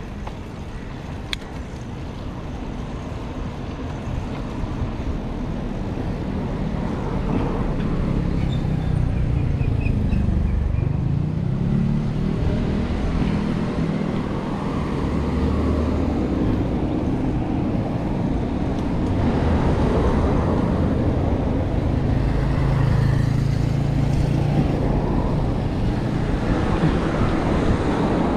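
Road traffic noise with motor vehicle engines running, getting louder over the first several seconds, then holding steady.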